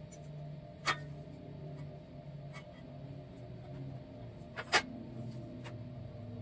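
Light clinks of small steel parts being handled, then a louder metal clank about four and a half seconds in as a sheet-steel tray is set down on a steel welding table, over a low steady hum.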